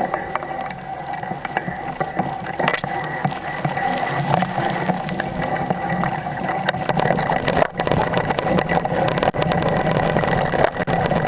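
Bicycle rattling and clicking as it is ridden over a rough dirt trail, with a dense, irregular run of clicks throughout.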